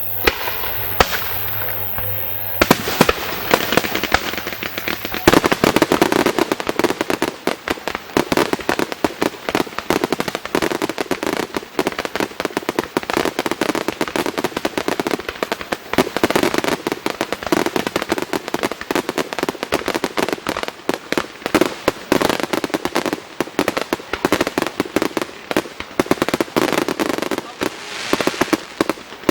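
Aerial fireworks going off in a dense, continuous barrage of crackling and popping, building in from about two seconds in.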